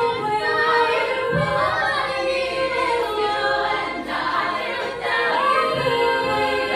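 Female a cappella group singing in close harmony with no instruments, their voices amplified through handheld microphones; a lower part holds a steady note under moving upper voices.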